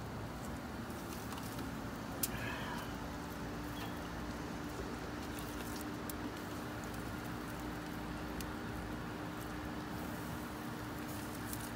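Steady outdoor background noise with a low, even hum that sets in about a second in, and a few faint clicks.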